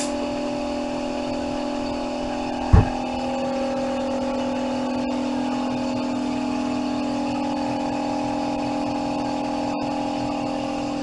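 Shop air compressor running with a steady hum, and one sharp knock about three seconds in.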